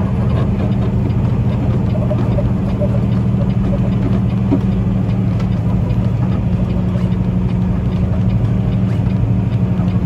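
A semi-truck's diesel engine running steadily at low speed through a turn, heard from inside the cab as a steady low drone.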